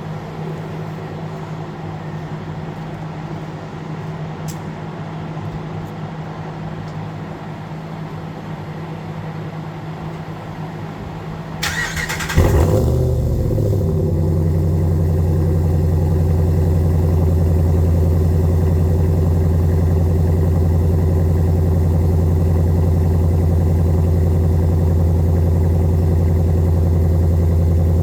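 A steady hum for about twelve seconds, then the engine fires up with a brief burst and settles into a steady, louder idle. The exhaust runs through a Karnage Performance muffler and JBA ceramic-coated shorty headers, still with factory catalytic converters and resonators.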